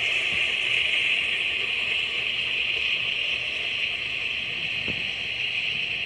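Freight train cars rolling past: a steady hiss and rumble of steel wheels on rail, with a faint knock about five seconds in.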